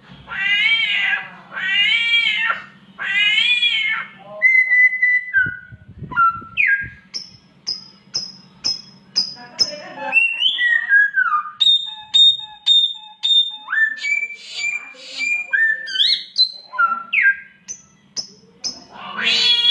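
A samyong, a mimic bird, imitating a mating cat's yowl three times, then giving a run of short whistles, quick rising and falling whistled notes and sharp clicks, with another cat-like yowl right at the end.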